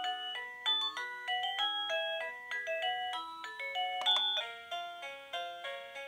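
Plug-in wireless doorbell receiver playing one of its electronic chime melodies at its lowest volume setting: a quick run of clear, bright notes. About four seconds in there is a click, and a different tune starts.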